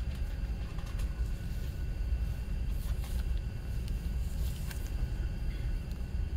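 A steady low rumble throughout, with a few faint light taps and rustles as hands handle a shrink-wrapped CD box set.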